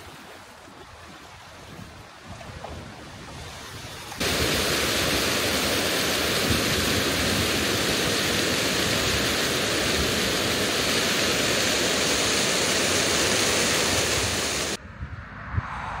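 Small waterfall on a moorland brook rushing steadily over rocks, loud and even; it cuts in suddenly about four seconds in and cuts off suddenly near the end. Before it, a quieter stream and wind; after it, gusty wind on the microphone.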